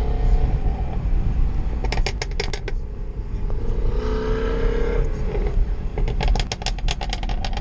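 Volkswagen MK7 GTI heard from inside the cabin while cruising: a steady low engine and road rumble. Two runs of quick clicks come through it, about two seconds in and again near the end.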